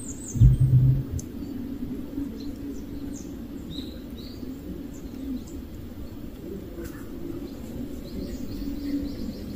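Small birds chirping in short, scattered calls over a steady outdoor background hum, with a brief low rumble about half a second in.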